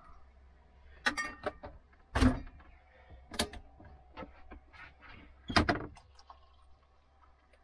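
A stovetop kettle being lifted off a gas hob and handled, with about four sharp knocks and clinks of metal and crockery, the loudest a little over two seconds in.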